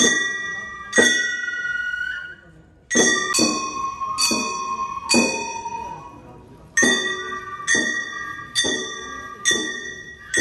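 Gion bayashi festival music: small brass kane gongs struck about once a second, each strike ringing on, with a flute holding high notes between the strikes.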